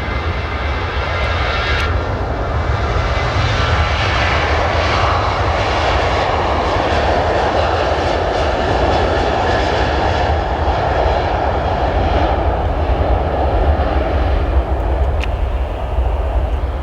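Jet airliner passing close by, a steady engine roar that builds over the first few seconds and stays loud through the middle before easing slightly near the end.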